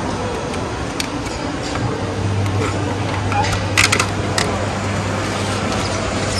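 Clear plastic clamshell food box being handled and snapped shut, a few sharp plastic clicks about four seconds in, over steady street-market background noise with a low hum.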